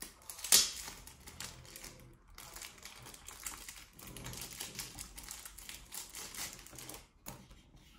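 Trading-card packets rustling and clicking as a hand rummages through them inside a cardboard box, in quick irregular crackles with a sharper one about half a second in.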